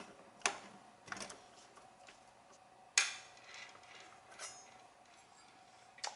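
Light, scattered mechanical clicks and knocks from the metal mechanism of an Amano 6836 punch clock, about five in all with the sharpest about three seconds in, over a faint steady hum.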